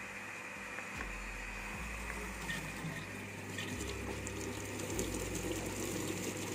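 Electric water pump of a Solteq FM110 hydraulic bench running with a steady hum while water rushes through the pipework. The rush steps up in loudness about four seconds in and again about a second later as the control valve is opened toward the desired flow rate.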